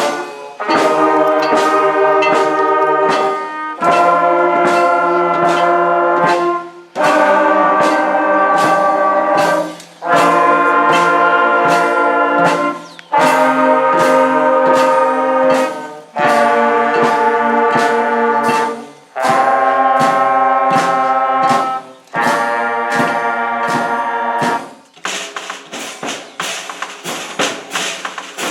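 Youth wind band playing loud held brass chords in phrases of about three seconds, each broken by a short pause, over a steady percussion beat. About twenty-five seconds in, the brass stops and the percussion carries on alone.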